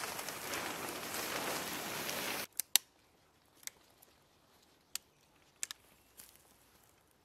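Rustling footsteps through woodland leaf litter for about two and a half seconds, then, after a sudden drop in level, a few sharp clicks and ticks as paracord is handled and tensioned around a tree trunk to rig a tarp ridgeline.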